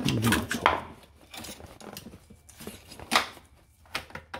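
Scattered clinks and knocks of small metal motorcycle parts and tools being handled, with a sharp knock just under a second in and another just after three seconds.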